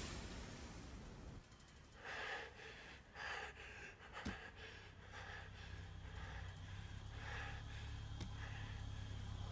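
A man breathing hard, a few heavy gasping breaths about two to four seconds in, over a faint low steady hum.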